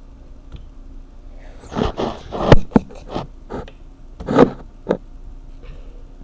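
Slime being handled and squeezed: scraping, rustling sounds with several sharp clicks between about two and five seconds in.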